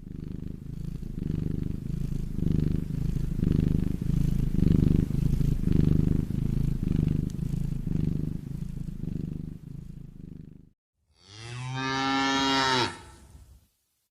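A low, pulsing rumble for about ten seconds, then a cow mooing once, a single call of about two seconds.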